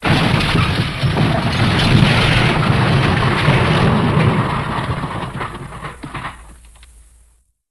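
A cartoon-style crash-and-rumble sound effect: a boom that starts suddenly at full loudness with heavy rumble and crackling debris, holds for about four seconds, then dies away and ends near the end.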